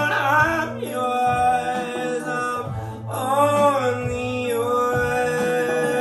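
A live song: one voice singing long, wavering phrases over steady held instrumental notes, with a new sung phrase at the start and another about three seconds in.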